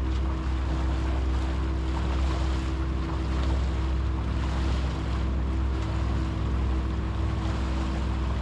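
Sailboat's auxiliary engine running steadily under motor, a constant low drone, with water rushing along the hull and wind on the microphone.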